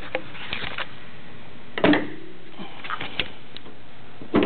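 Metal clicks and clunks of the 1948 Daimler DE36's hood catches being worked by hand as the hood is opened, with the loudest knocks about two seconds in and near the end.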